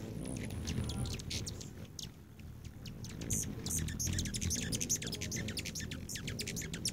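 Hummingbirds at a feeder giving rapid, sharp high chip and chatter notes, thickest in the second half. Underneath runs a steady low hum from their hovering wingbeats.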